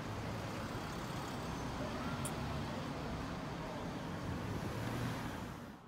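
Town-street traffic: a pickup truck and cars running at low speed, a steady engine rumble, with a brief high click about two seconds in.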